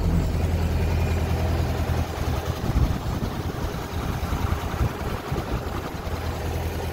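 GMC General fuel truck's diesel engine idling just after a cold start, a steady low hum that runs a little unevenly for a few seconds.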